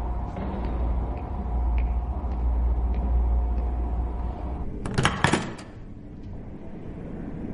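Film sound effects: a steady low rumble with a faint hum, broken about five seconds in by a short, loud burst of sharp clattering knocks.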